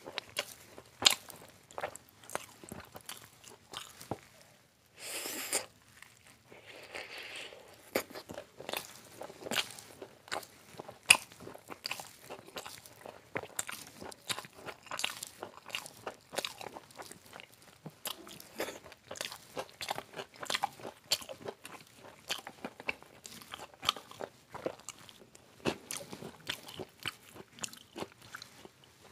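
Close-up mouth sounds of a person eating deep-fried street snacks: sharp crunches and bites with wet chewing between them, in an irregular run.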